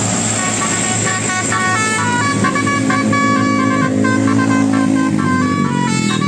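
Bus telolet horn playing a quick melody of stepped, held notes over a bus engine running.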